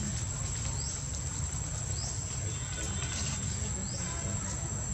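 Steady high-pitched insect drone, like crickets or cicadas, with a short rising chirp every second or two, over a low rumble.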